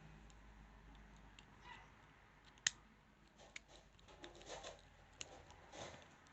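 Faint metallic clicks and scraping of a lock pick working the pins inside a padlock, with one sharper click a little under three seconds in.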